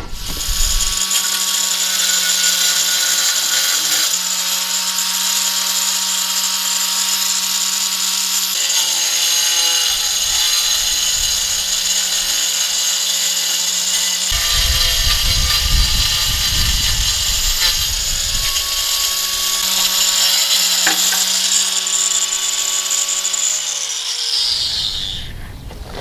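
Electric power tool running steadily with a whine and a grinding hiss, likely cutting into the earthenware pot for the oven. Near the end it winds down and stops.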